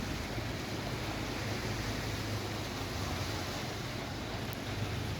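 Steady rushing noise of traffic and water on a flooded road, with a low, even engine hum beneath it.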